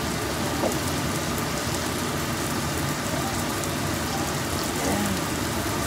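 Onions and garlic sizzling in hot oil in a stainless-steel stockpot: a steady, crackling frying sizzle.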